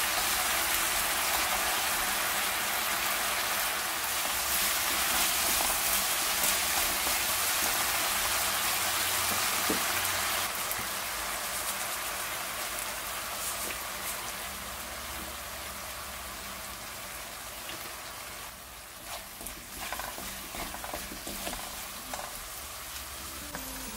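Dried filefish strips in a thick, sweet red-pepper-paste glaze sizzling in a nonstick wok as they are stirred with a wooden spatula, with occasional scrapes and clicks. The sizzle is steady at first and gradually fades over the second half.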